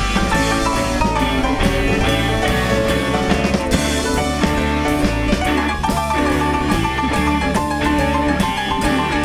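Live band playing amplified music with electric guitar, electric bass and drum kit, in an instrumental stretch with no singing.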